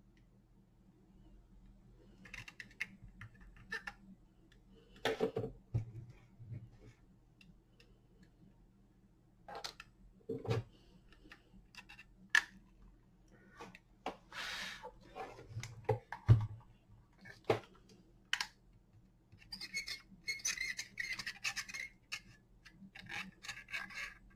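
Soldering-gun work on a battery pack's protection board: scattered small clicks and scrapes as a screwdriver tip presses the wires onto the terminals, with a few short stretches of hiss as the joints are heated, longest about 20 to 22 seconds in.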